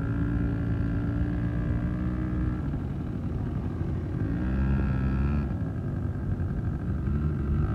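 Quad bike engines running, one rising in pitch briefly about four seconds in before settling back.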